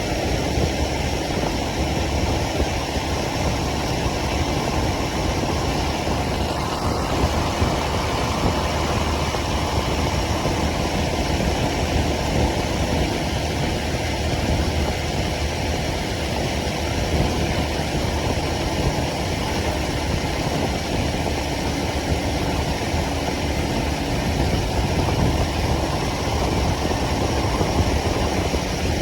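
Motorcycle engine running steadily during a city ride, with the motorcycle's own engine and road noise holding an even level throughout.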